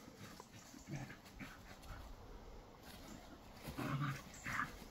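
Two Shetland sheepdogs playing, with a few short dog vocal sounds, the loudest pair near the end.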